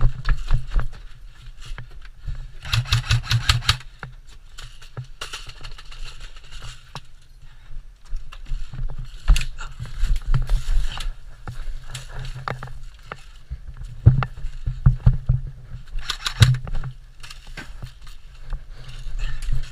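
Airsoft guns firing in short bursts of rapid clicks, about ten a second, about three seconds in and again near the end, with single shots and knocks scattered between, over the rustle and scrape of a player moving with the camera and a low wind rumble.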